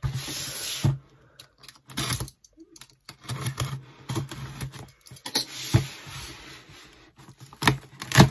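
Small objects being handled on a table: irregular sharp clicks and taps with some rustling and scratching.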